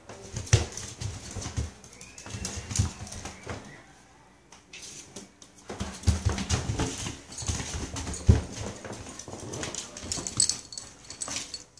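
A ferret scampering across a hard floor: quick clicks and knocks of its feet, with a pause of about two seconds partway through.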